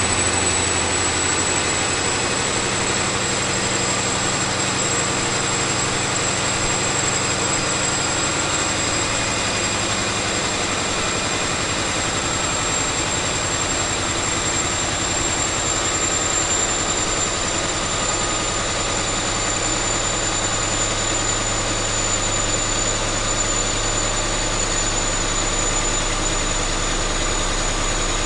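Caterpillar 3508B V8 diesel engine running steadily on a dynamometer, with a high thin whine that slowly drops in pitch and a low tone that shifts about two-thirds of the way through.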